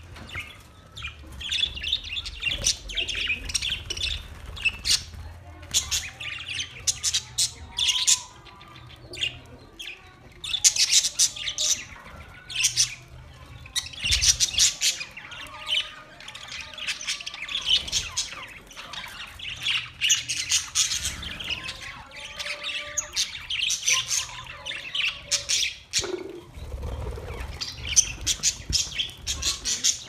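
Budgerigars chirping and chattering: many short, rapid, overlapping calls, dense and continuous.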